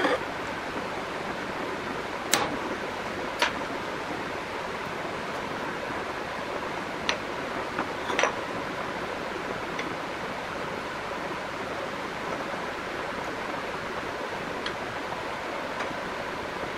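Steady background hiss with a few sharp metal clicks, four clear ones in the first half and fainter ones later, as small steel spur gears and calipers are set down on an aluminium plate.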